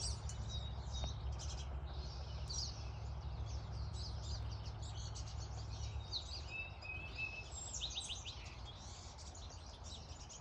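Several wild birds chirping and singing together in a spring chorus of short, overlapping calls and trills. A low rumble sits under them and fades out about six seconds in.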